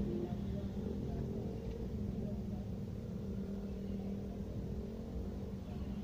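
Steady low hum of a car engine idling, heard from inside the cabin, with other cars moving slowly past.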